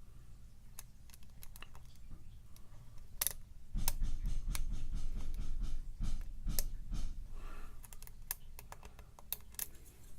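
Small irregular clicks of a lock pick and tension tool working the pins inside an ERA challenge lock cylinder, with a low rumble of the lock being handled from about four to seven seconds in.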